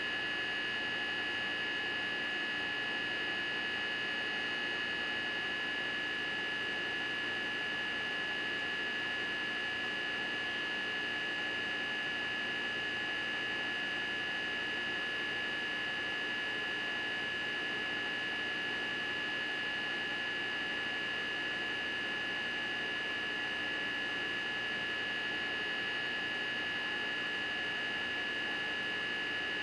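Steady, unchanging hum with a few constant high whining tones over a faint hiss, holding the same level throughout.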